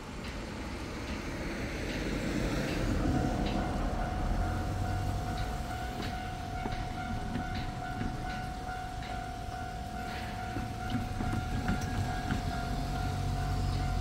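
Japanese railway level-crossing alarm starting about three seconds in and ringing on: a steady electronic tone with a pulsing higher tone over it. A car drives over the crossing early in the alarm, adding a low rumble.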